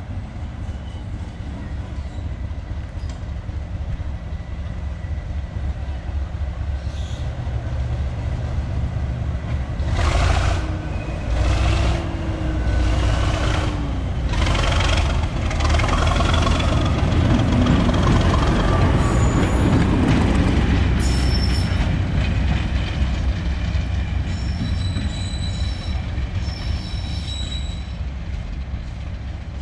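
Heritage train running on the rails: a steady low rumble that swells to its loudest about two-thirds of the way through, then eases. A run of knocks comes about a third of the way in, and thin high wheel squeals sound in the second half.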